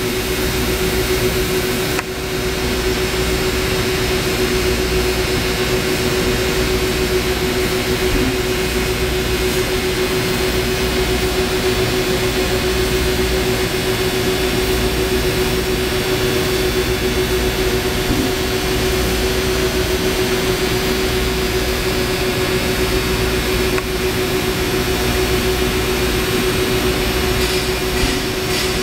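Mitsubishi CNC laser cutting machine running: a steady, loud mechanical hum with one constant mid-pitched tone over an even whir and hiss, dipping briefly about two seconds in.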